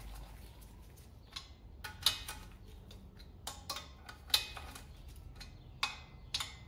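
Ratchet wrench on a long extension snugging down the cylinder head nuts of an air-cooled VW engine: sharp, separate metallic clicks at uneven intervals, about eight in all, as the ratchet is swung back and forth.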